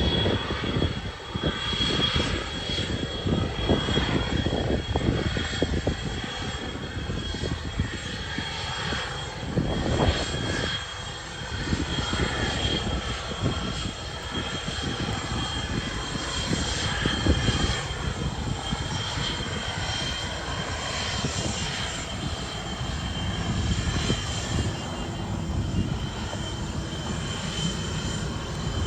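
Aircraft engine running with a steady high whine, over the rushing noise of heavy rain.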